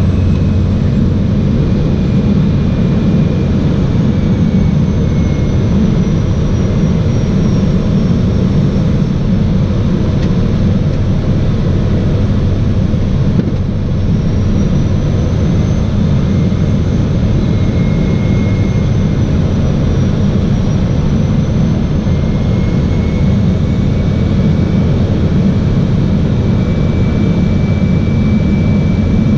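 A seaplane's engine and propeller droning steadily in flight. A faint high whine drifts slowly up and down in pitch.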